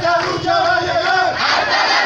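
Crowd of protesters chanting loudly together, many voices with long held syllables.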